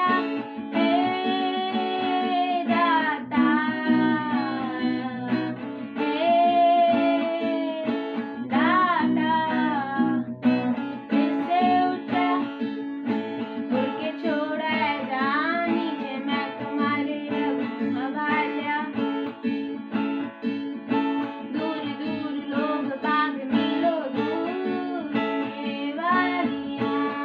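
A song with a voice singing over acoustic guitar.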